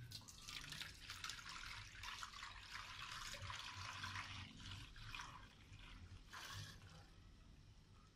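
Milk pouring from a steel milk can into a large steel pot, a steady splashing stream that thins after about five seconds, with one more short splash near the end.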